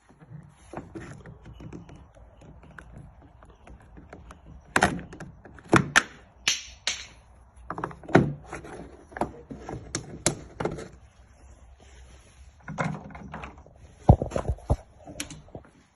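Irregular clicks and knocks of hands and a tool working loose the lock actuator and its parts inside a Range Rover Evoque's rear door, with the loudest knock near the end.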